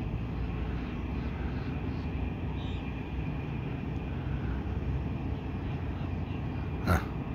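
Tugboat's diesel engine: a low, steady drone as it motors through the opened drawbridge, with one brief knock near the end.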